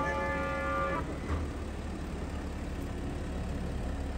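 A held, horn-like pitched tone that cuts off about a second in, followed by the low steady rumble of a slow-moving car's engine.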